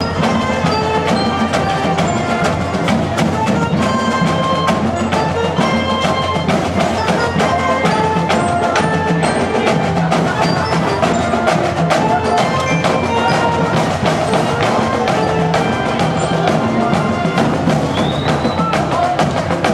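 Music with busy percussion, many sharp clicking strokes over a melody of held pitched notes, playing steadily throughout.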